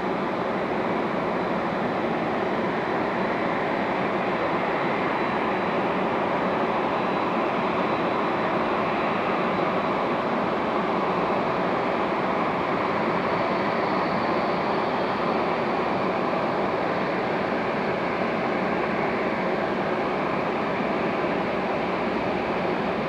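Boeing 767-300ER freighter's twin jet engines at idle as it taxis: a steady rushing hum with a faint high whine over it.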